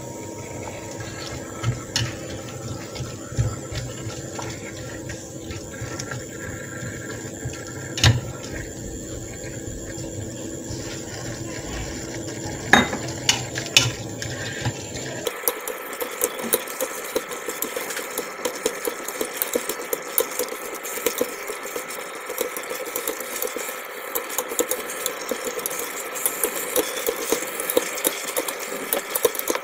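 Duck pieces stir-fried in a stainless steel pot, with long chopsticks clicking now and then against the pot over a steady hum. About halfway the sound changes abruptly to a dense, rapid crackle of frying.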